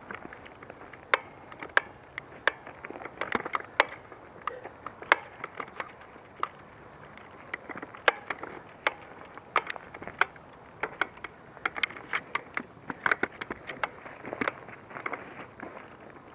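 Footsteps crunching over dry ground and brush: a scatter of irregular sharp clicks and crackles over a steady hiss.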